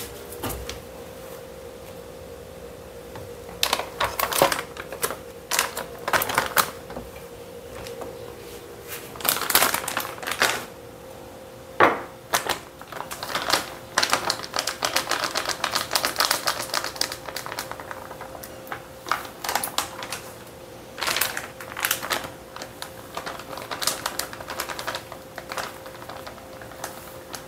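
Plastic food packets crinkling and being torn open by hand, in clusters of dense crackly clicks and rustles, over a steady low hum.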